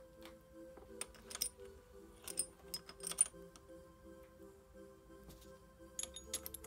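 Sharp metal clinks of gearbox parts, shift forks and bushings, being set into a Derbi D50B0 engine's aluminium crankcase half, in small clusters about a second in, around two to three seconds in, and near the end. Quiet background music plays underneath.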